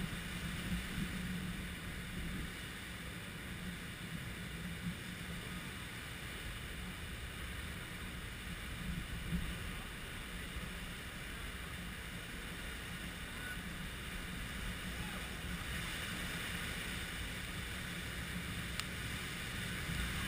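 Heavy surf breaking on a rocky shore, mixed with steady wind noise on the microphone, growing a little louder and hissier over the last few seconds.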